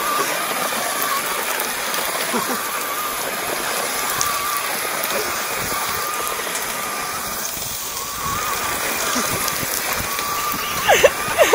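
Radio-controlled 4x4 truck spinning its wheels on a gravel driveway: a steady rush of flung gravel and dirt, with the motor's thin, wavering whine running over it.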